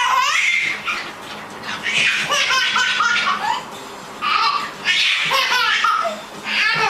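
High-pitched laughter coming in several separate bursts.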